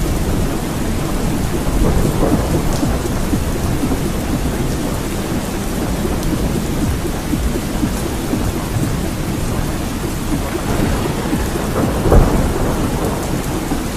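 Steady heavy rain with rolling thunder, swelling about two seconds in and again more strongly near the end.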